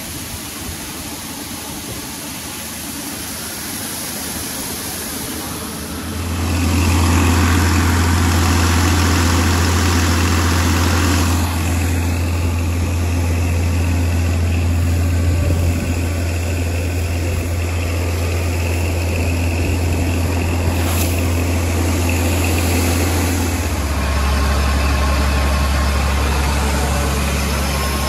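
Case IH 5230 tractor's diesel engine running steadily, heard from the open operator's seat. It gets much louder about six seconds in and settles a little lower in pitch near the end.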